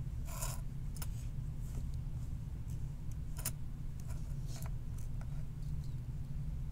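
A handful of light clicks and taps as a printed circuit board is handled and set down on a work surface, over a steady low hum.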